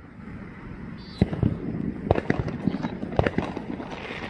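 Fireworks going off: after about a second, a rapid, irregular run of sharp bangs and cracks, several a second.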